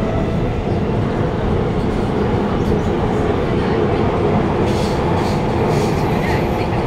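Inside the passenger car of an Alstom Movia R151 metro train running between stations: a steady rumble of wheels on rail and running gear, with a few light ticks in the second half.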